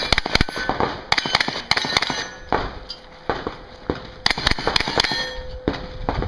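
Hi-Point 995TS 9mm pistol-caliber carbine firing several quick strings of shots, two to four shots close together in each string, with short pauses between strings.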